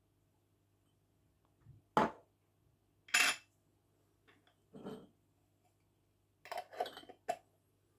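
Small agar jars and their plastic lids knocking and clinking as they are handled on a wooden board: separate sharp knocks about two and three seconds in, the second the loudest, then a quick flurry of knocks near the end.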